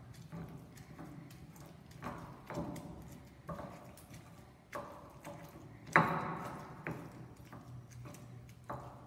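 Stone pestle knocking and grinding in a volcanic-stone molcajete, crushing chiles into salsa: irregular knocks about once a second, the loudest about six seconds in.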